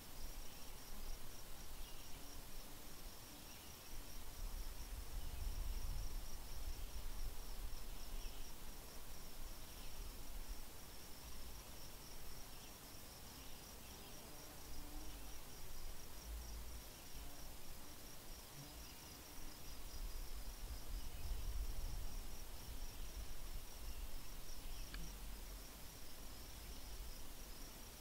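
An insect trilling steadily in fast, even, high-pitched pulses, with faint scattered chirps and a low rumble that swells and fades.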